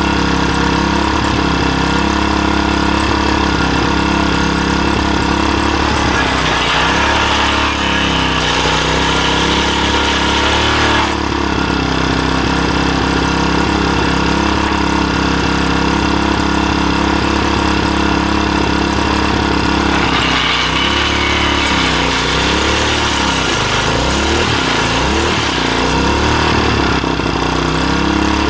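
A small 3.5-horsepower engine running steadily, its speed sagging and recovering twice, about a quarter of the way in and again past two-thirds, with a rough cutting hiss over it each time as the stake-pointing cutter bites into wood under load.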